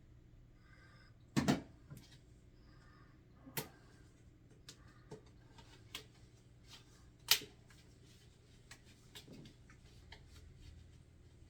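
Scattered clicks and knocks of parts of a portable air conditioner's window kit being handled during setup, three of them louder than the rest, over a low steady hum.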